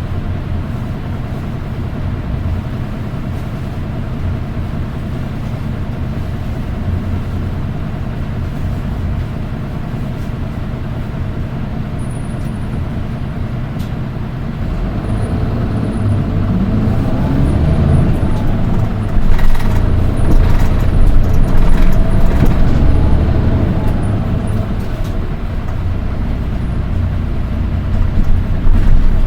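Nissan Diesel Space Runner RM (PDG-RM820GAN) city bus heard from inside, its diesel engine running steadily. About halfway through it gets louder and its note rises and falls in pitch for several seconds as the bus drives on, then it settles again. The engine note carries a shrill whine that the uploader says only this one of the four RM820s has, and wonders whether it is an abnormal noise.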